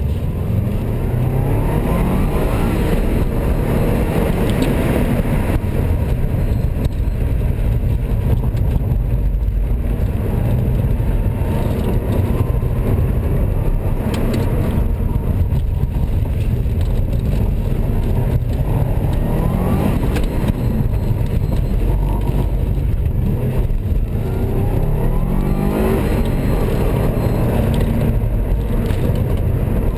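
Subaru Legacy B4's flat-four boxer engine driven hard, its pitch climbing as the car accelerates about two seconds in, near the middle, and twice more in the second half, with steady wind and road noise underneath.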